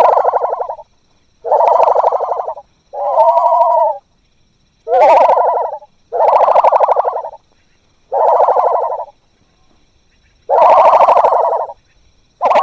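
Terror bird creature sound effect: a series of about eight loud, bird-like calls, each about a second long, with short pauses between them.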